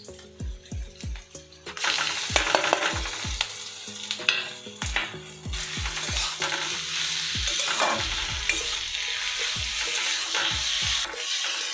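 Marinated chicken pieces hitting hot mustard oil with fried onion and capsicum in a kadai. It starts to sizzle loudly about two seconds in and keeps sizzling while it is stirred with a spatula, with scattered knocks.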